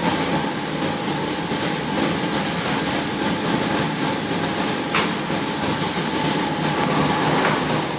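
Coffee roaster running with a steady whirring rush and a faint steady hum, and one sharp click about five seconds in.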